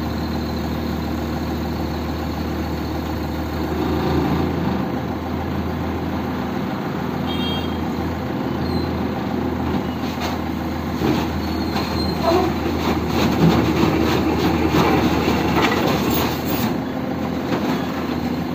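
SANY SY35C mini excavator's engine running under load with its hydraulics working as it drives its steel tracks up onto a lorry's flatbed. Knocks and brief squeaks from the tracks and undercarriage come more often and louder in the second half.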